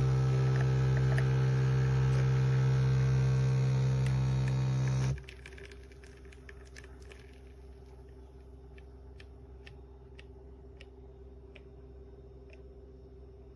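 Nespresso Essenza Mini's pump humming steadily as it brews, cutting off abruptly about five seconds in. Then a series of faint drips falls, spacing out as the flow ends.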